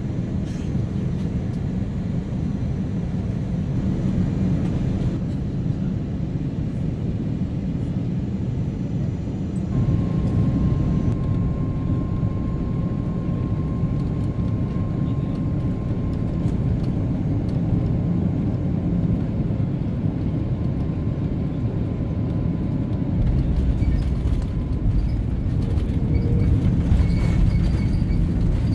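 Airbus A330-300 cabin noise on final approach: a steady low rumble of engines and airflow, with a thin steady whine joining about a third of the way in and a heavier rumble with a few knocks in the last few seconds.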